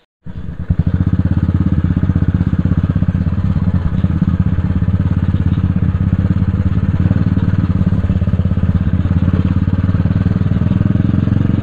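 Motorcycle engine running steadily, cutting in suddenly just after the start.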